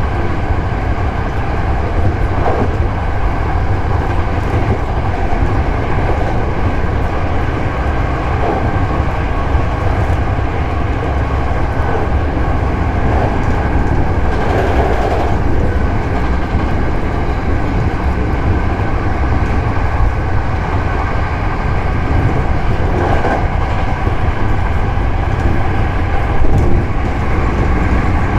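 Hankyu 7000 series electric train running on the line, heard from inside a carriage: a steady rumble of wheels on rail with a constant hum, and a brief louder clatter about halfway through.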